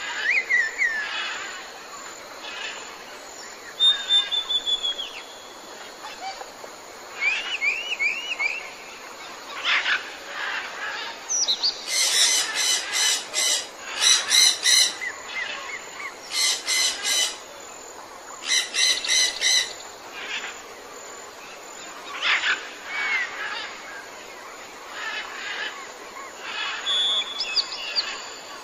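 Wild birds calling over a steady background hiss: scattered chirps, a short trill and a run of falling whistles, then four short bouts of a rapid rattling call in the middle.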